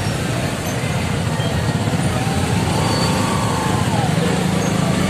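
Many motorcycle engines running together at low speed in a dense procession, a steady low rumble.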